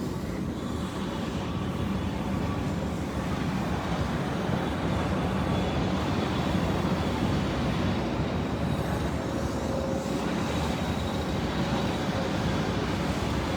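Steady rumble of city traffic, with a few faint steady tones humming through it.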